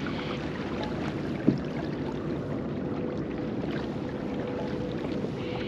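Kayak under way on calm water: a steady rush of wind and water noise against the hull, with a single sharp knock about a second and a half in.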